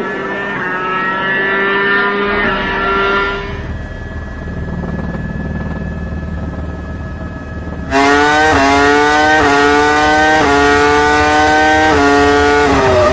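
Formula 1 car engine at high revs, its pitch climbing and dropping back in quick steps as it shifts up through the gears. A quieter, lower-pitched stretch comes in the middle. Then a sudden cut to a louder engine at full throttle, shifting up roughly every second.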